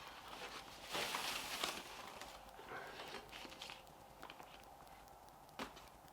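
Faint handling noises: soft rustling and small clicks, a little louder about a second in, with one sharp click near the end.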